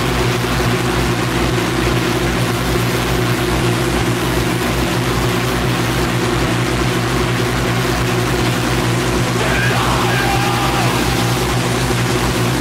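Power electronics noise music: an unbroken wall of harsh distorted noise over a steady low drone, with a fast throbbing pulse in the bass. A wavering higher tone surfaces briefly about ten seconds in.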